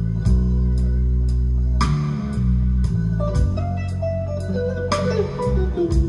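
Guitar-led music with bass guitar and a drum beat, played back over hi-fi loudspeakers driven by a pair of 845 single-ended triode tube amplifiers. There is a heavy, steady bass line and a beat about twice a second, and a guitar melody comes in about halfway through.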